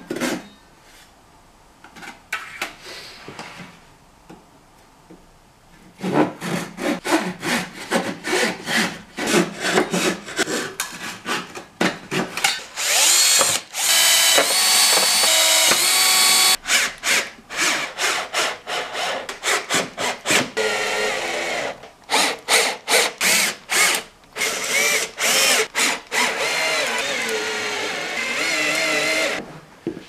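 Cordless drill-driver driving screws through the plastic base of an upright vacuum cleaner into a wooden batten, in long steady whines with short stops between. Before that come quick back-and-forth strokes of a hand saw through the wooden batten.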